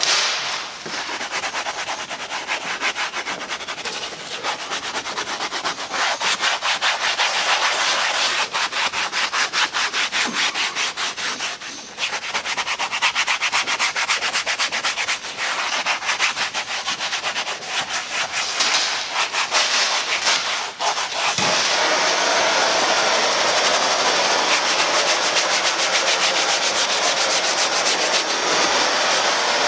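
Rapid hand scrubbing of a wet, cleaner-soaked leather car seat, stroke after stroke in long runs with short pauses about twelve and twenty-one seconds in.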